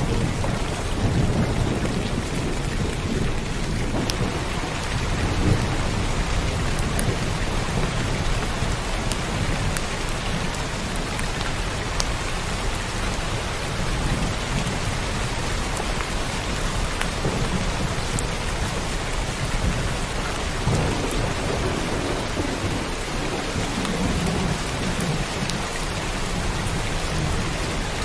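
Heavy rain falling steadily, with thunder rumbling low underneath and swelling at times.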